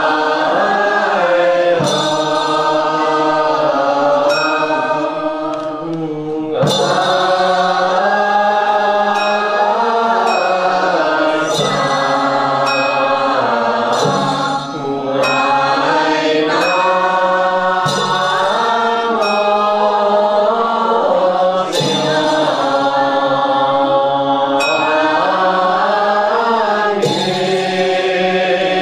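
A group of Buddhist monastics and lay followers chanting a Chinese Buddhist liturgical hymn in unison, on long drawn-out notes that slide between pitches. Sharp percussion strikes mark the chant every few seconds.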